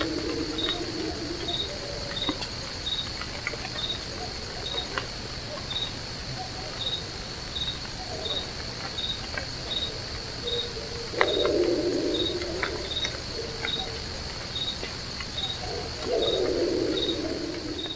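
A low, wavering animal howl rises three times: at the start, about eleven seconds in, and near the end. The recordist surmises it could be a dog howling with two dogs barking, and it is likened to a bloodhound or a bear. Behind it crickets chirp steadily about twice a second over a continuous high insect drone.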